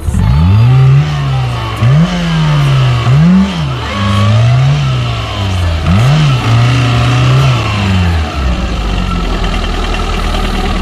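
Suzuki 1.3 GLX off-roader's four-cylinder engine revving up and down over and over, its pitch climbing and dropping about once a second, then holding steadier near the end.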